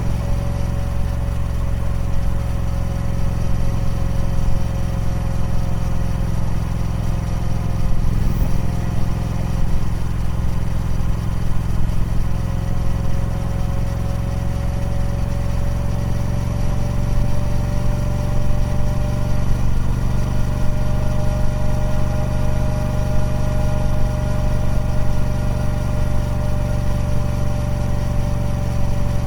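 Triumph Speed Twin 1200's 1200cc parallel-twin engine running steadily through its stock exhaust, with an even, unbroken note.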